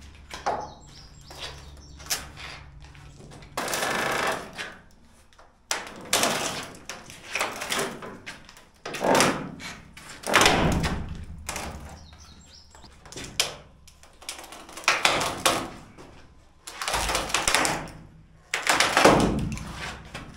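Wooden form boards and bracing being pried loose and knocked down: an irregular series of knocks, bangs and scraping wood, some sharp and some drawn out for about a second.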